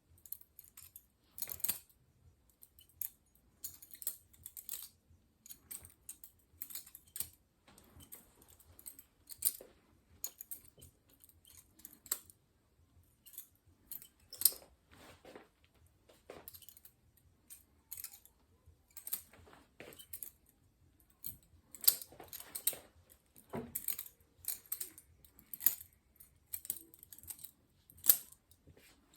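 Butterfly knife (balisong) being flipped open and closed by hand: its metal handles and blade click and clack against each other in irregular bursts, with short pauses between.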